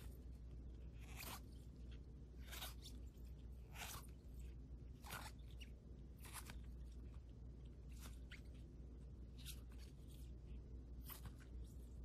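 Rigid plastic toploader card holders clicking and scraping against one another as they are flipped through one at a time: a short, faint click about every second and a quarter, over a low steady hum.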